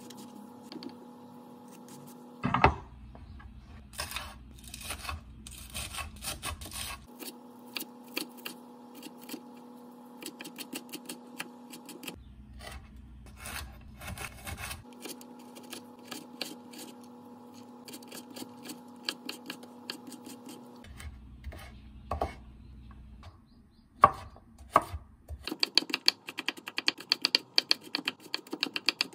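A chef's knife chopping vegetables on a wooden cutting board: single cuts through eggplant, then dicing of carrot and green onion, and a fast run of mincing strokes near the end. A faint steady hum lies under some stretches.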